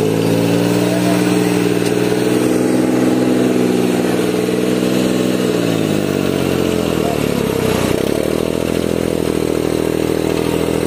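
Tractor diesel engine running under throttle: the revs hold high, sink back over a couple of seconds from about five and a half seconds in, then rise again about eight seconds in and hold.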